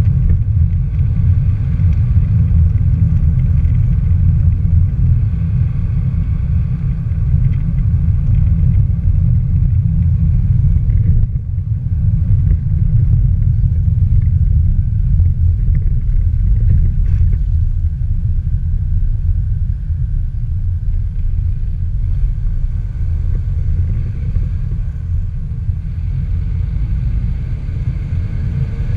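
Steady low rumble of a vehicle driving along a road: road and wind noise, with a brief drop in level about eleven seconds in.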